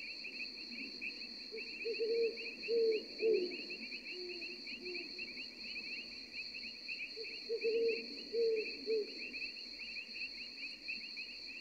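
Night-time nature ambience of crickets chirping steadily, with a few short low calls a couple of seconds in and again later on.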